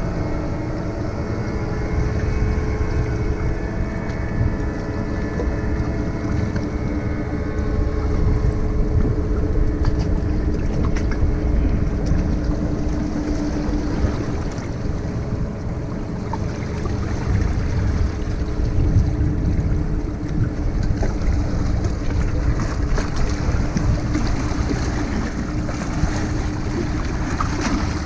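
Wind buffeting the microphone and sea waves washing against the boulders of a rock breakwater. Under them runs a steady boat-engine drone, plain for about the first twelve seconds and then fainter.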